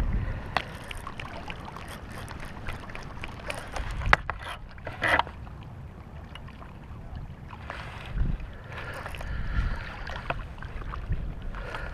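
Wind rumbling on the microphone, with scattered clicks and knocks from hands handling a baitcasting rod and reel. There are two sharper knocks about four and five seconds in.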